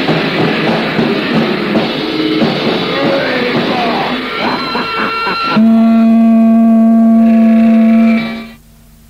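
Closing bars of a 1980s heavy metal recording: fast drums and distorted guitar with bending notes, ending in one loud held note that stops abruptly near the end. A low hiss and hum remain after it.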